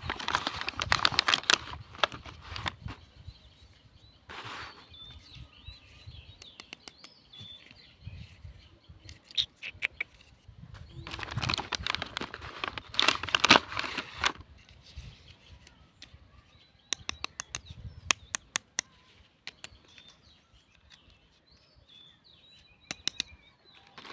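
Toy packaging being handled and unwrapped: two loud spells of crinkling and rustling, one at the start and another about eleven seconds in. Scattered sharp clicks of small pieces being handled fall between them.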